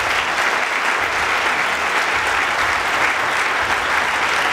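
Audience applauding steadily, a sustained round of clapping from a large crowd.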